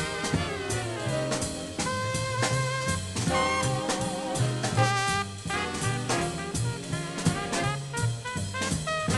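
Swing big-band jazz: an open trumpet solos in long held notes, one with a wide shaking vibrato about five seconds in, over the band's rhythm section with drums keeping swing time and a stepping low bass line.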